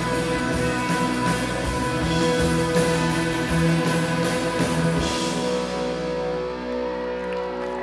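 Live rock band with electric and acoustic guitars and drums playing the final bars of a song; about five seconds in the drums stop and the guitars ring out on held notes.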